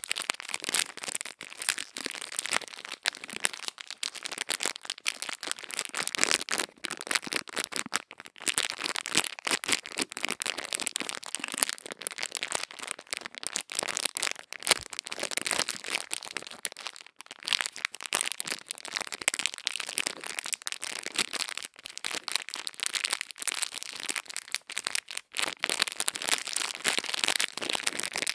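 Close-up ASMR ear-cleaning sounds: dense, crisp crackling and scratching of tools rubbing against the microphone, with many small clicks.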